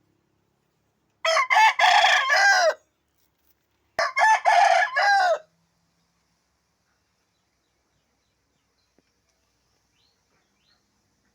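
Rooster crowing twice, two loud cock-a-doodle-doos a little over a second apart. Its full, strong crow is taken as the sign that it has recovered from illness.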